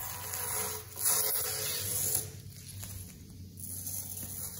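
Airbrush spraying paint in three hissing bursts of about a second each, over a steady low hum.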